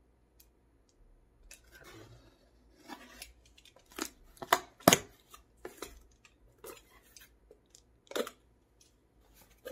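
An Amazon delivery package being opened by hand: irregular snips, rips and crinkles of packaging, starting about a second and a half in, with the sharpest click about five seconds in.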